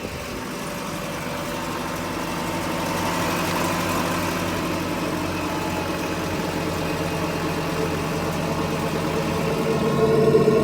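Steady mechanical hum of a car's running drivetrain and spinning wheel, heard while listening for wheel-bearing noise. It builds over the first few seconds and gets louder near the end.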